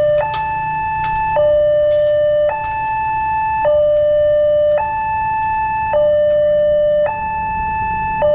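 Railway level-crossing warning siren: an electronic two-tone signal switching back and forth between a higher and a lower tone, each held just over a second, over a steady low rumble.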